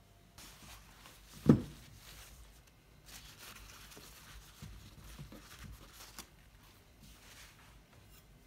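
Paper towel and plastic wrapping rustling as hands handle them on a kitchen counter, uneven and crackly over a few seconds. A single dull thump comes about a second and a half in.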